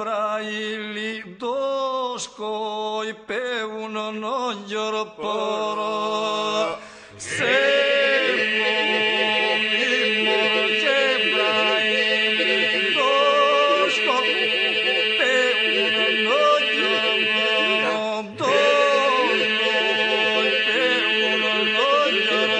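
Albanian ilahi, an Islamic devotional hymn, sung a cappella by male voices in the Lab style: a lead voice winds through an ornamented, sliding melody over a steady held drone. About seven seconds in, the sound swells as more voices join.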